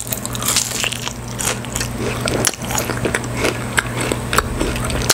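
Close-miked biting and chewing of spicy yangnyeom-sauced Korean fried chicken, a dense run of crunches and crackles from the fried coating.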